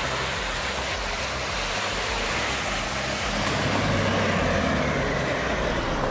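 Heavy vehicle engine running steadily under a dense rush of noise, getting a little louder about two-thirds of the way in.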